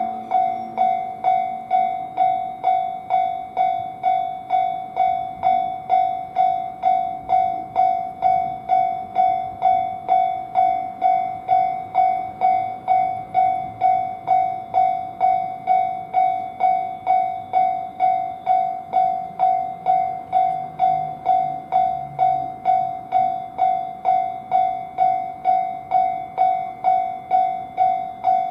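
Japanese railway level-crossing warning bell ringing its 'kan-kan' alarm, a steady repeated tone at about two strikes a second, signalling that a train is approaching.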